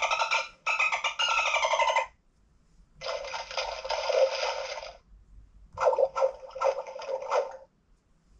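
LeapFrog 100 Animals electronic book playing three short animal sound effects through its small speaker, the first with gliding pitch, each lasting about two seconds with short gaps between.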